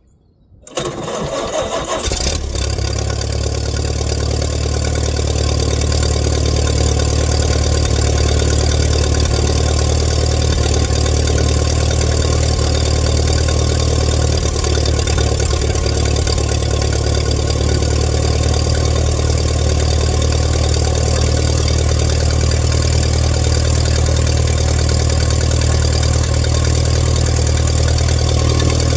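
1947 Allis-Chalmers WC tractor's four-cylinder engine starting about a second in, then running steadily.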